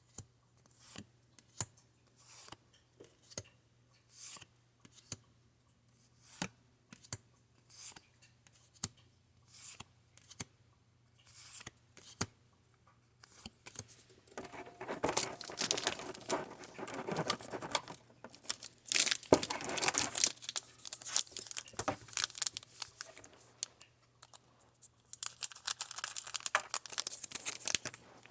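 A run of short clicks and snips about once a second, then a plastic booster pack wrapper of Pokémon cards being crinkled and torn open, a long stretch of crackling with a short pause near the end.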